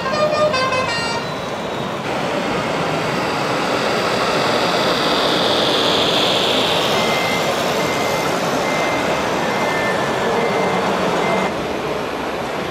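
Radio-controlled Scania truck model running, its onboard sound system playing truck engine noise. A row of short reversing beeps sounds in the second half, and a few high melodic horn tones sound in the first second.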